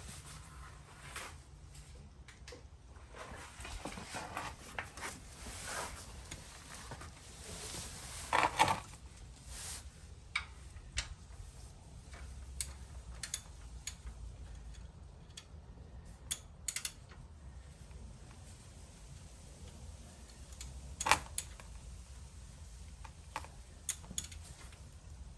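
Metal hand tools clinking and rattling as a ratchet and socket are handled and fitted, with scattered light clicks and rustling and two louder clanks.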